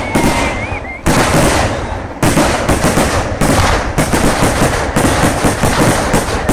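Vedikettu fireworks barrage: a dense, unbroken run of loud firecracker bangs, many sharp reports a second running into each other. A wavering whistle sounds through the first second.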